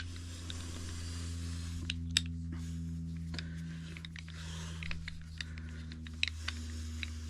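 A Bonney Masterpiece wrench being handled, giving scattered light clicks and taps, the sharpest about two seconds in. A steady low hum runs underneath.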